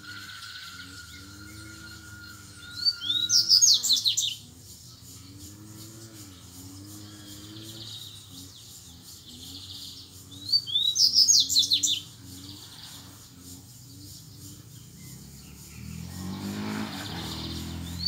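Double-collared seedeater (coleiro) singing: two short, rapid song phrases of high chirps, each about a second and a half long and about seven seconds apart. A low rumble swells briefly near the end.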